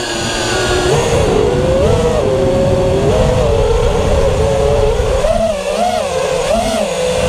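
The four 2650kV brushless motors and propellers of a custom FPV quadcopter whining, heard from on board. The pitch rises and falls as the throttle changes, with several quick rises and dips near the end, over a low rumble of prop wash and wind.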